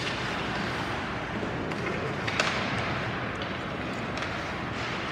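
Ice hockey play echoing in an indoor rink: a steady hiss of skates on ice and arena noise, broken by a few sharp clacks of sticks and puck, the loudest about two and a half seconds in.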